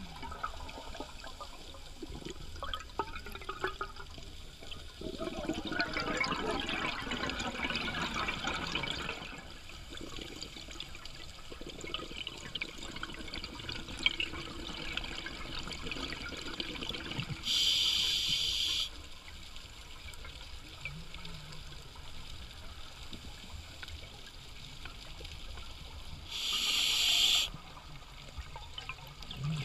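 A scuba diver's breathing heard underwater through the regulator: the gurgle of exhaled air bubbles, strongest early on, and two short, loud hisses of the regulator delivering air on inhalation, about two-thirds of the way in and near the end.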